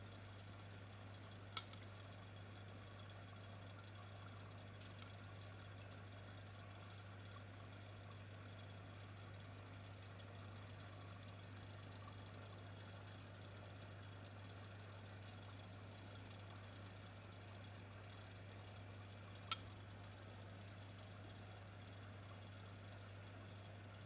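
Near silence: a faint steady low hum over room tone, with two short faint clicks, one about a second and a half in and one near the end.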